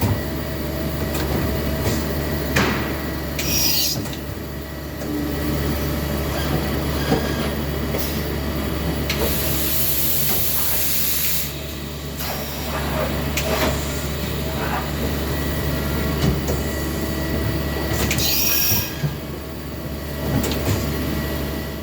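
Okuma Macturn 30 CNC lathe running with a steady hum of several held tones. Short bursts of high hiss come about 3 s in, for about two seconds near the middle, and near the end, with scattered clicks.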